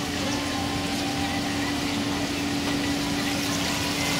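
Water bubbling and churning in aerated live-fish tanks, steady throughout, with a steady hum underneath.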